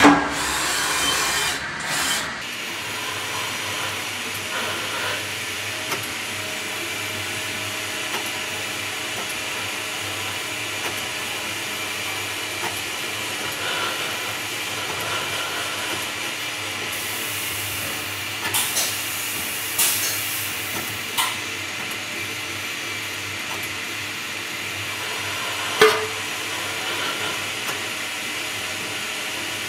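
Milling machine spindle running steadily with an engraving cutter, a steady whir and hiss as it engraves lettering into a sheet-metal part. A few short sharp clicks come through in the second half, the loudest near the end.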